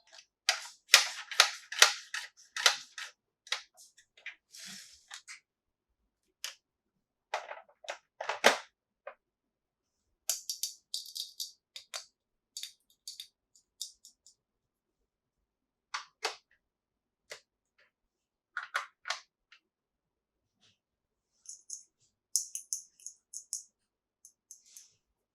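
Small plastic toy pieces being handled: a rapid run of sharp clicks and taps at first, then scattered single taps, with short bursts of high rustling around the middle and near the end.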